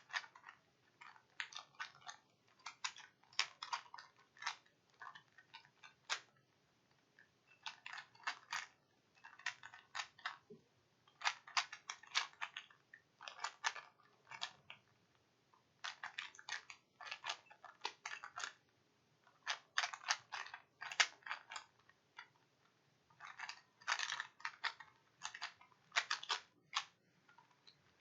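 3x3 Rubik's cube being turned by hand during a solve: quick runs of plastic clicks as the layers snap round. The clicks come in bursts of a second or two with short pauses between.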